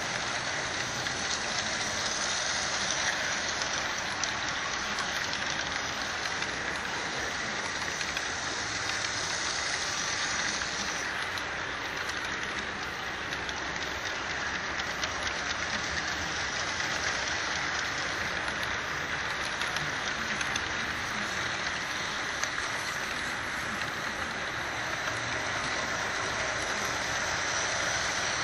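HO-scale model freight cars rolling past close by, a steady rolling noise of small metal wheels on the rails, dipping slightly in loudness midway.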